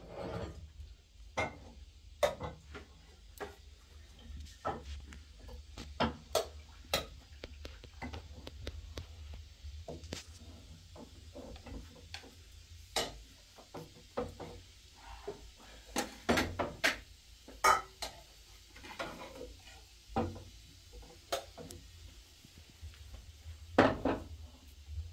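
Dishes and cutlery clinking and clattering in irregular knocks, over a steady low hum.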